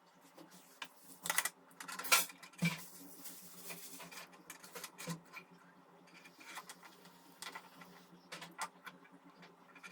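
Irregular clicks and light knocks of small hard objects being handled, loudest and most frequent between about one and three seconds in, over a faint steady low hum.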